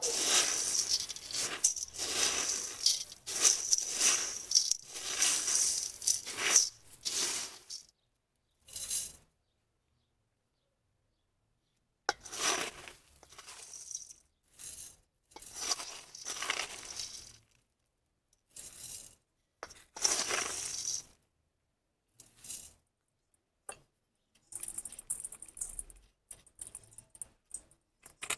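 Gravelly soil mix being stirred and scooped in a stainless steel bowl: gritty scraping and crunching in repeated bursts with pauses between. Toward the end, lighter scattered clicks of grit falling on metal.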